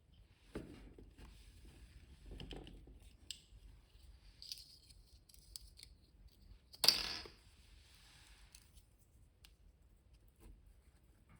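Packaging being handled and cut during an unboxing: scattered small snips, clicks and rustles, with one louder, brief crinkle about seven seconds in.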